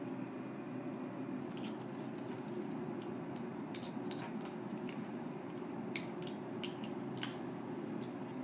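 Metal spoon scraping cooked crab meat from the shell into a stainless steel bowl: scattered small sharp clicks and taps of metal on shell and bowl, with soft squishing of the meat. A steady low hum runs underneath.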